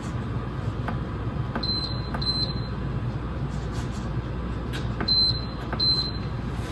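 Crock-Pot Express electric pressure cooker's control panel beeping as its push buttons are pressed: short high beeps in two pairs, one pair about a second and a half in and another about five seconds in, with soft button clicks. A steady low hum runs underneath.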